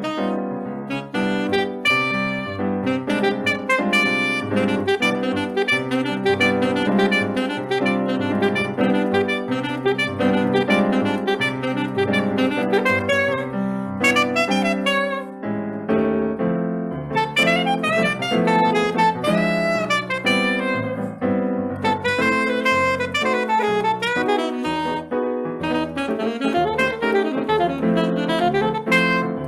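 Live saxophone playing a melodic line in Brazilian jazz style over piano accompaniment, with bass notes stepping underneath.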